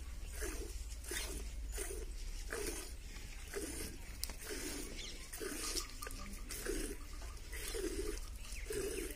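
A cow being milked by hand into a small steel pot: rhythmic squirts of milk striking the milk in the pot, about one to two a second.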